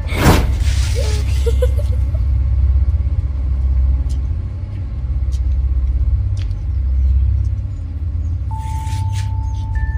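A deep, steady rumble, with a brief rushing whoosh just after the start and a thin steady tone coming in near the end.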